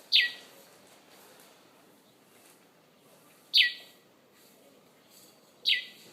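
A bird calling three times, a few seconds apart: each call a short, sharp chirp sweeping down in pitch.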